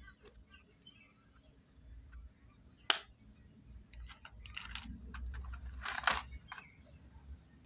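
Plastic toy pieces being handled: a sharp click about three seconds in, then short scraping or rustling sounds a little before five seconds and again around six seconds.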